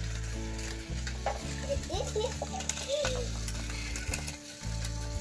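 Battery-powered toy bullet train running along wooden track: a steady motor whirr with a rattling rumble from the wheels on the wood, briefly dipping a few times.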